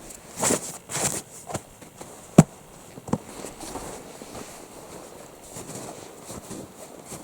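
A few footsteps crunching in snow, then a sharp knock about two and a half seconds in, the loudest sound, and a smaller click soon after.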